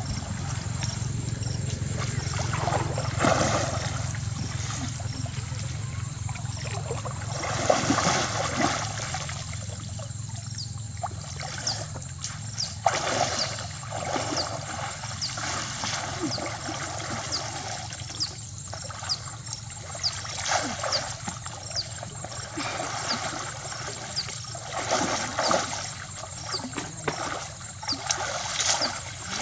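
Shallow muddy water splashing and sloshing as a woven bamboo scoop basket is swept through it and lifted out, with water trickling and draining back through the weave, in uneven surges.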